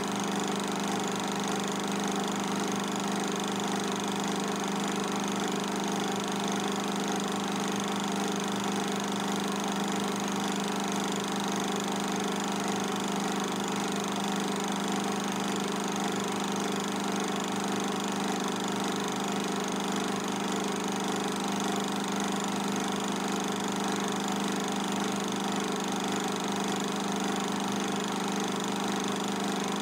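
Steady machine hum, even and unchanging, made of several pitched tones with the strongest low down.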